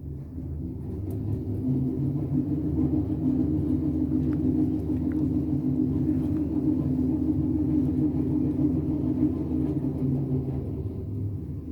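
2002 FI-VF3 high-speed elevator car (rated 180 m/min) travelling through its shaft: a steady rumble and hum. It builds over the first couple of seconds as the car gathers speed and eases off near the end as it slows.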